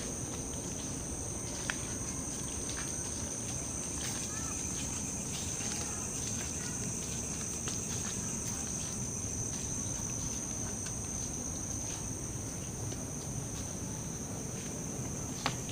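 Steady insect chorus: a continuous high-pitched shrill drone of calling insects, with scattered faint ticks and crackles and two sharper clicks, one about two seconds in and one near the end.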